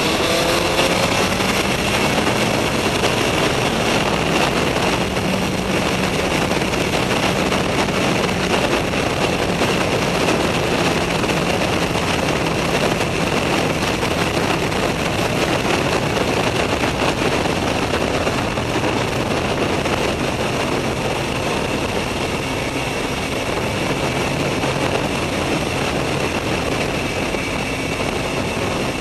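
Suzuki GSX-R 1000 K4 inline-four sport bike running at road speed, heard from on board under heavy wind rush at the microphone. The engine note climbs at the very start, then holds steady.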